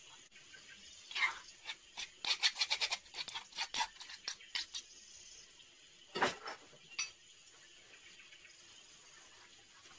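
A metal spoon scraping and clinking in quick strokes as herb marinade is scooped from a bowl onto a raw leg of lamb, then a single thump about six seconds in and a click just after.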